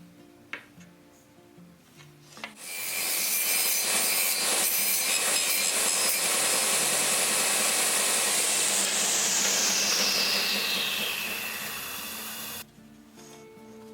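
A woodworking power tool starts and runs steadily for about ten seconds, then its motor winds down with a falling whine before stopping. Faint background guitar music is heard before and after.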